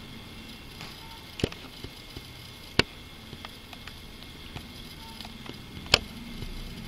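Three sharp computer mouse clicks, a few seconds apart, with the last the loudest, plus a few fainter ticks over a faint steady hiss.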